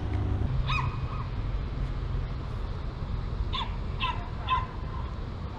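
A few short, high-pitched animal calls, two about a second in and three more past the middle, over a steady low rumble of wind on the microphone.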